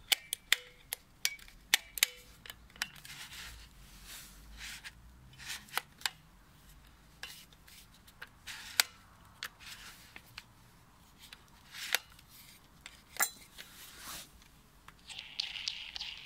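Sharp plastic clicks as the safety switch lever of a Metabo WEA 26-230 MVT Quick angle grinder is worked, a run of them in the first few seconds, then scattered handling clicks and knocks on the tool's housing. Near the end, a short rasping as the metal quick-locking nut is spun off the spindle thread by hand.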